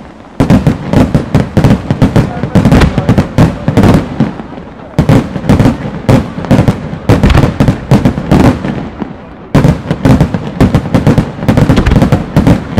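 Fireworks display: rapid volleys of aerial shells launching and bursting, several sharp bangs a second, in three waves with short lulls about four and a half and nine seconds in.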